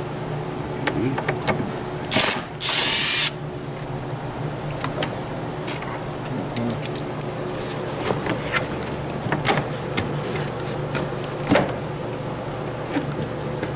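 A power tool, likely an air ratchet on the car's mount or underbody bolts, runs in a short blip and then a burst of under a second, about two to three seconds in. Scattered sharp metallic clicks and clinks of hand tools follow, over a steady low hum.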